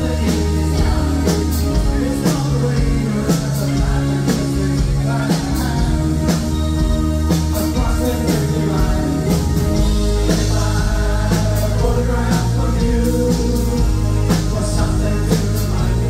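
Live new-wave band playing through a PA: a steady drum-kit beat under synthesizer keyboards and electric guitars, with singing. About ten seconds in the bass becomes heavier and steadier.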